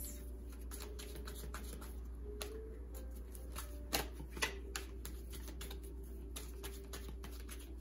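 A deck of tarot cards being shuffled by hand: a run of irregular soft clicks and slaps of the cards, with one sharper snap about four seconds in, over a low steady hum.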